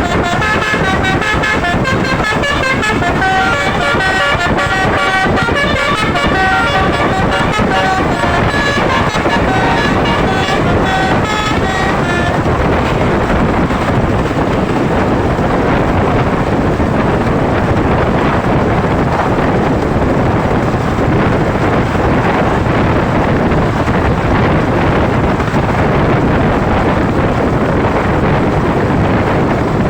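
Telolet basuri bus horn, a set of trumpet horns playing a quick stepping multi-note melody, which stops about twelve seconds in. Loud steady wind and road noise from the moving bus fills the rest.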